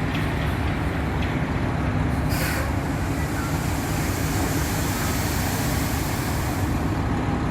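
Dump truck's diesel engine running with a steady low rumble, and a brief hiss about two and a half seconds in.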